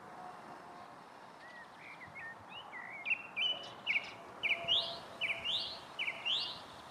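A songbird singing: a few short chirps, then from about three seconds in a phrase of a short flat note followed by a quick rising sweep, repeated about once a second.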